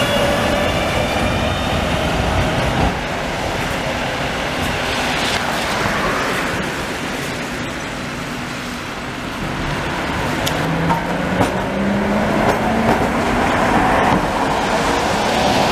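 Street traffic on a wet road, with car tyres hissing and electric trams passing. A low electric motor whine rises in pitch from about ten seconds in as a tram pulls away.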